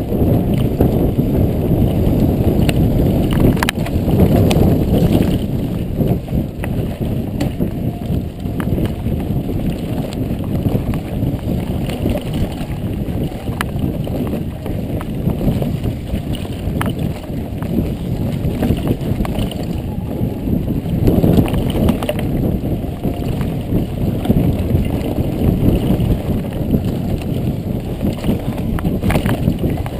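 Mountain bike riding at speed on a dirt trail: a steady low wind rumble on the microphone, with scattered clicks and knocks as the bike rattles over the ground.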